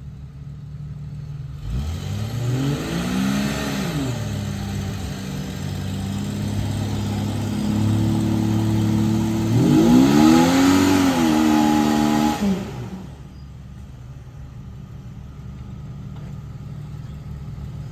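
Off-road Jeep's engine revving hard twice under load in deep mud, each time held high for a few seconds, then dropping back to idle.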